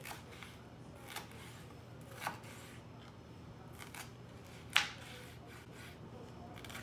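Kitchen knife slicing a green bell pepper into strips on a wooden cutting board: about five slow, uneven cuts, each ending in a tap of the blade on the board, the loudest about two-thirds of the way through.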